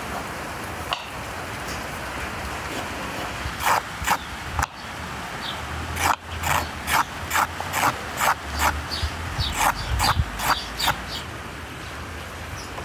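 A kitchen knife cutting slivers off a carrot against a wooden board: short sharp strokes, about two to three a second, starting about four seconds in and stopping near the end, over a steady hiss.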